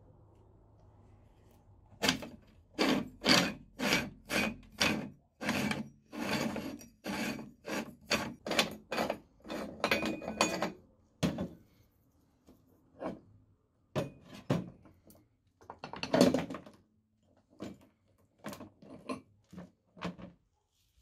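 Metal meat grinder being taken apart by hand: a run of quick metal knocks and scrapes, about two a second, as the end ring and the wax-clogged cutting plate are worked loose, then scattered separate clinks as the parts are handled and set down.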